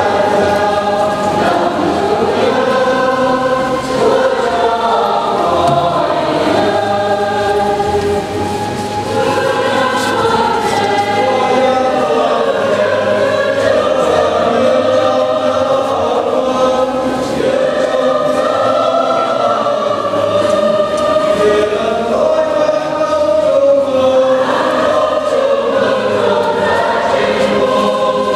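Church choir singing a hymn, several voices together, steady throughout.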